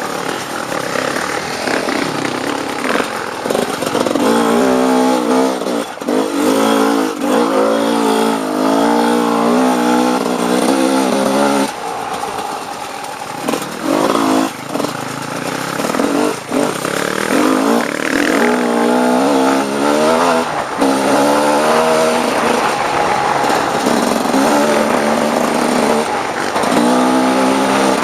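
Off-road dirt bike engine under riding load, the throttle opened and closed again and again so its pitch climbs repeatedly and drops back, with brief lulls between the pulls.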